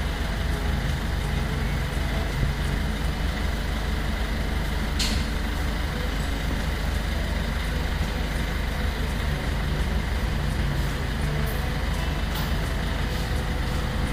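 Steady background noise: a low rumble under an even hiss, with one short hiss about five seconds in.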